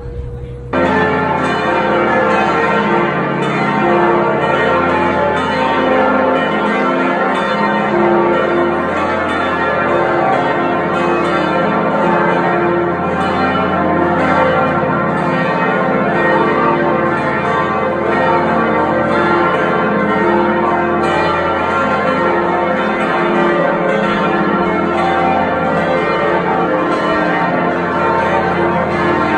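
Church bells ringing a continuous peal, many bells overlapping, starting abruptly about a second in and holding an even level.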